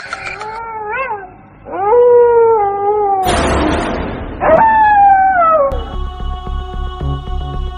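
Dog howling in several drawn-out calls that waver up and down in pitch, broken by a short rushing noise, with one last long falling howl. About six seconds in, background music with a steady beat starts.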